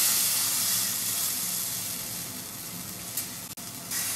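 Pancake batter sizzling as it is poured onto a hot skillet. The hiss is loudest at first and slowly dies down, with a brief dropout about three and a half seconds in.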